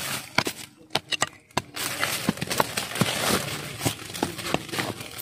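A hand tool chopping into the wood and roots of a tree being dug up for bonsai material: about a dozen irregular sharp strikes, with scraping between them.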